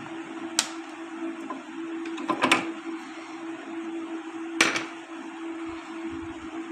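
Metal hand tools clinking against motorcycle clutch parts during dismantling: a sharp click about half a second in, a quick cluster of clinks about two and a half seconds in, and another click near the five-second mark, over a steady low hum.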